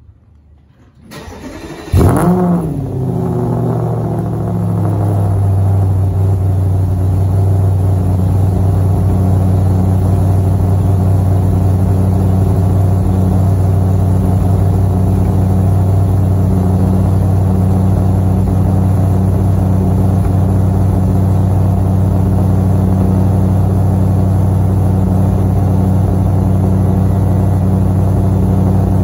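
2015 Audi RS5's 4.2-litre V8, breathing through JHM race headers, non-resonated downpipes and a 2.75-inch catback, cold-started. After a brief crank it catches with a loud flare about two seconds in, drops over the next few seconds and settles into a steady cold idle.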